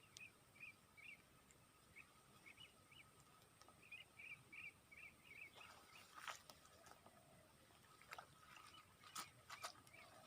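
Faint outdoor ambience with a small animal chirping in short calls, repeated in little runs. A few sharp clicks come in the second half.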